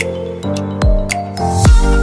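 Background music: an electronic track with deep kick drums, building through a rising swish into a heavier, bass-heavy beat near the end.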